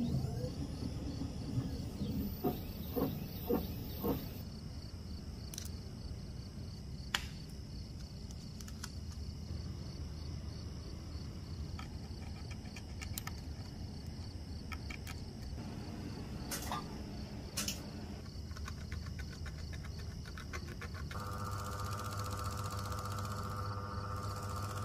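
Watch-workshop sounds under a faint steady high whine: a few short clicks and taps, then, near the end, a small watchmaker's lathe motor starts running with a steady hum.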